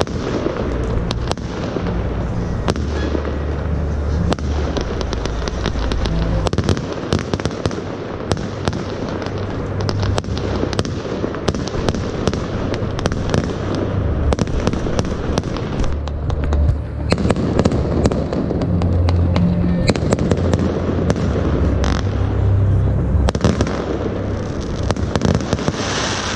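Aerial fireworks going off without a break, with many sharp cracks and bangs, while music plays underneath.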